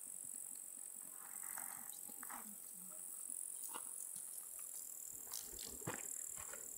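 Faint open-air ambience: a steady high-pitched insect chirring, with a few faint scattered ticks.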